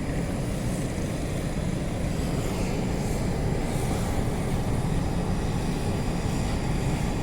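Steady low rumble of a car's engine running, with no change in pitch or level.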